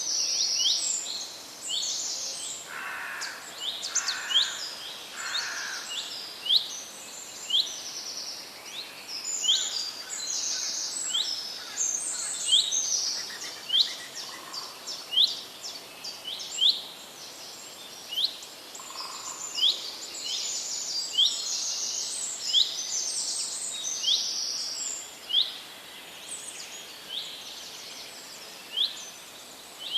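A chorus of forest birds chirping and calling over the steady rush of a running stream. Quick high chirps and sweeping notes repeat every fraction of a second, with three lower calls about three to five seconds in.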